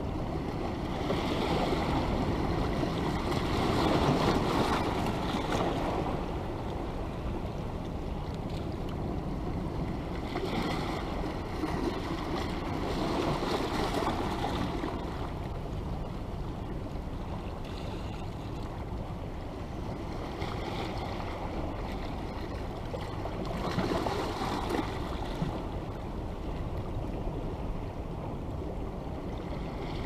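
Sea surf washing on a rocky shore, a steady wash that swells in slow surges every several seconds, loudest about four seconds in.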